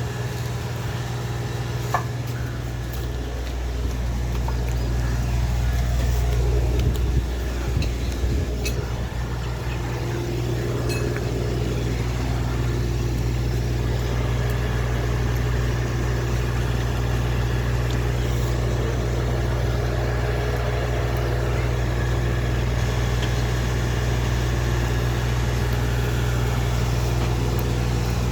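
A motor vehicle's engine running with a steady low drone, a little louder for a couple of seconds near the middle.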